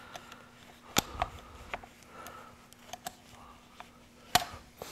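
A cloth rag rustles and rubs inside a Remington 1100 shotgun's receiver, with light clicks of metal parts. Two sharper clicks come, about a second in and near the end.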